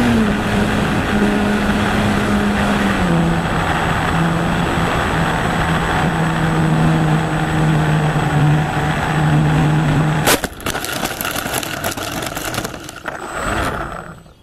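Small model aircraft's motor humming steadily under wind rush over the onboard camera, its pitch stepping down about three seconds in. About ten seconds in it hits the dirt with a burst of knocks and scraping, and the sound dies away near the end.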